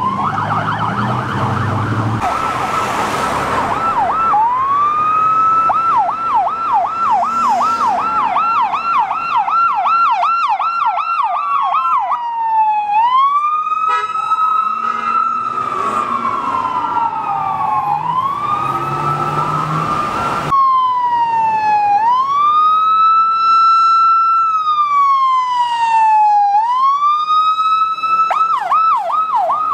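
Electronic emergency-vehicle sirens on California Highway Patrol patrol cars and a fire department pickup running Code 3. A fast yelp of about three sweeps a second gives way to a slow rising and falling wail, about one cycle every four seconds, with a second siren overlapping at times. The yelp comes back near the end, and vehicle engines and traffic can be heard underneath in places.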